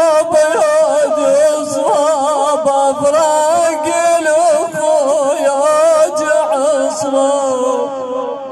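A man's solo voice chanting a melismatic Shia Husseini mourning lament into a microphone. He holds long, wavering, ornamented notes, and near the end the voice slides lower and fades.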